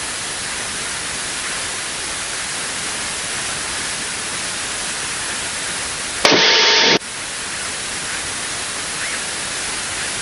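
Steady static hiss on the aircraft's radio audio. About six seconds in, a louder burst of radio noise lasts under a second and cuts off suddenly.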